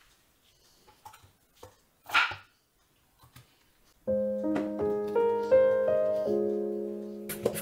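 A few light handling clicks and one brief noisy rustle about two seconds in, then piano background music starts about four seconds in, a simple stepping melody over a held low note.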